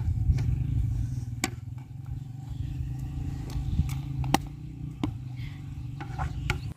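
A wooden spoon stirring in a metal cooking pot, knocking against it in sharp clicks every second or so, over a steady low rumble.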